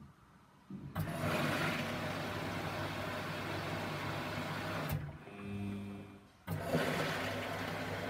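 Samsung front-loading washing machine taking in water: the inlet valve opens suddenly about a second in with a steady rush of water, shuts off briefly around five seconds in, and opens again a moment and a half later.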